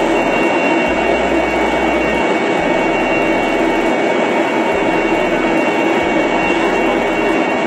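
Steady, loud jet aircraft noise: an unbroken roar with a thin, constant high whine on top.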